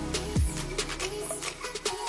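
Background electronic music with a steady beat of sustained notes and crisp hi-hat ticks, and one deep kick drum about half a second in.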